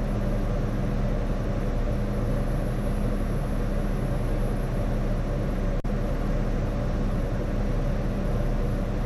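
Diesel engine of a 20-tonne rough-terrain crane running steadily during a lift, heard from inside the operator's cab as a constant low hum.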